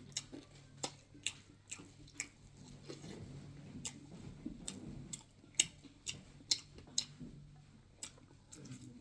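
Close-miked eating sounds: chewing, with a dozen or so irregular sharp mouth clicks and smacks and a soft low mushing in the middle.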